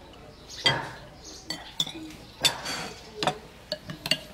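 Metal spoons clinking and scraping against porcelain plates and a serving bowl as people eat: about half a dozen irregular sharp clinks, some with a short ring.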